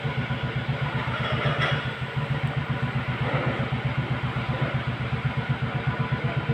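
An engine or motor running steadily, giving a fast, even low throb.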